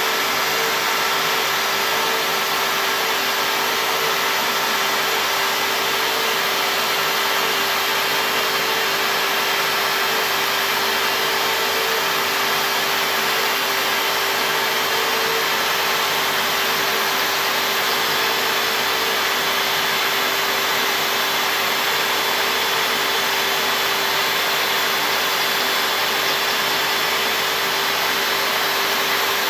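CNC router spindle running steadily as its bit carves lettering into a board, together with a dust-extraction vacuum: an even, unbroken whine and hiss with a few fixed tones.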